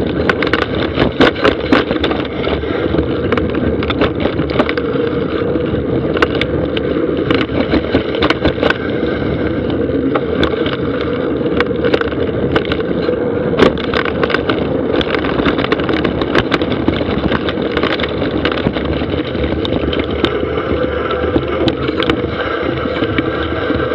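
Mountain bike rolling fast down a dry dirt trail: a continuous rumble of tyres on dirt with frequent sharp rattles and clacks as the bike hits bumps.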